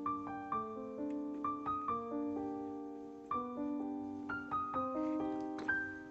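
Background piano music: a piano playing a melody of struck notes that ring and fade, several in quick succession near the end.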